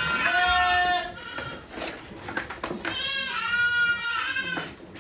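A goat bleating: two long, drawn-out bleats, the second starting about three seconds in.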